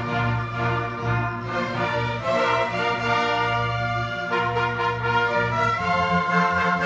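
Youth orchestra playing held chords over a steady low bass note.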